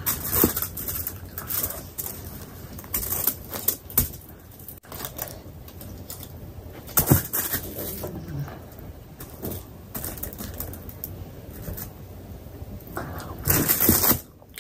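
Close-miked eating sounds: a person chewing paratha, with irregular wet mouth clicks and lip smacks and a louder burst of chewing near the end.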